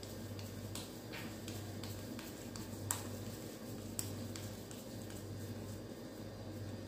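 Lightly oiled palms rubbing together, giving faint sticky clicks and smacks, over a low steady hum.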